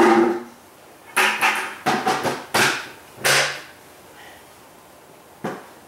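Knocks from beekeeping equipment being handled: one loud bang with a short ringing tail, then a run of about six sharp, hollow knocks over two and a half seconds, and a fainter knock near the end.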